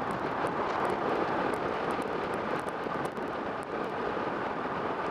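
Steady wind rush and road noise while riding a 2015 Kawasaki Ninja 650 at an even speed, with its engine running underneath.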